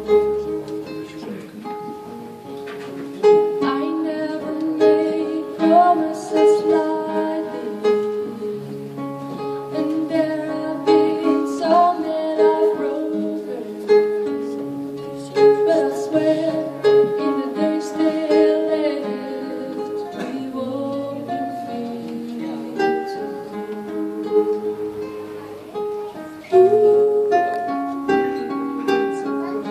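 Two acoustic guitars fingerpicking a slow ballad, a steady flow of plucked notes and chords.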